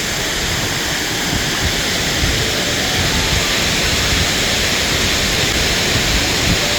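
Loud, steady rush of water pouring over a wide waterfall, heard close up from the rocks beside it.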